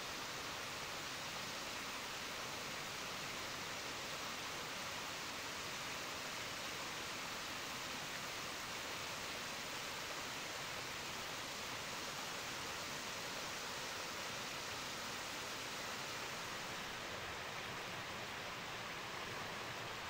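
Small spring-fed waterfall, groundwater spilling through gaps in a mossy rock face in many thin streams: a steady, even rush of falling water.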